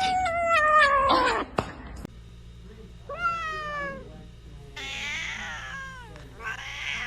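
Cat meowing: one long, loud, drawn-out meow that falls in pitch, then after a cut three shorter meows, the last two harsher.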